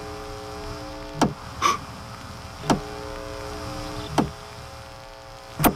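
Electric fence energizer pulsing: four sharp ticks evenly spaced about a second and a half apart, over a steady hum.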